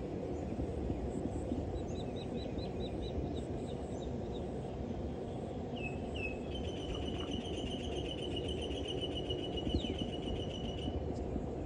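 Small birds calling over a steady low rumble of distant road traffic. There is a quick run of short, high notes, then two short upward chirps about halfway through, leading into a long, rapid trill that runs almost to the end.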